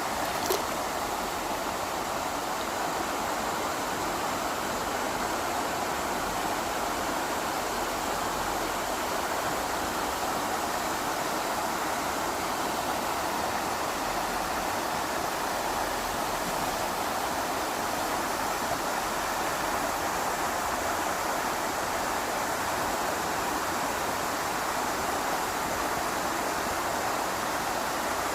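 Waterfall in a valley stream, water falling and rushing in a steady, unbroken roar.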